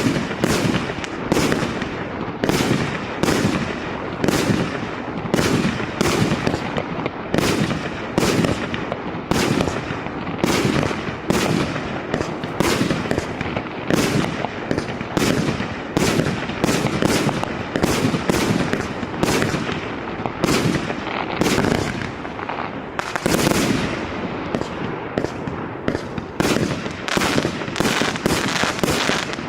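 Maxsem MC12180 consumer firework battery (cake) firing shot after shot, a sharp bang about twice a second without a break, the shots coming faster near the end.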